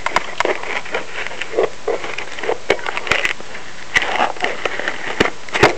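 Paper packaging being handled: irregular crinkling and rustling with many sharp clicks.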